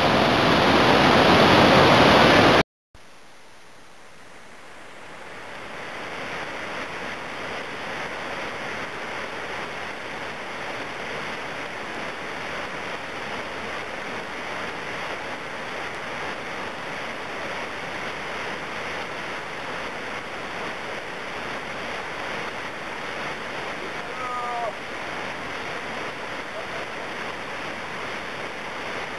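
Whitewater rapids rushing steadily. The sound is loud at first, cuts off sharply about three seconds in, then fades back in quieter and stays steady, with a brief faint call near the end.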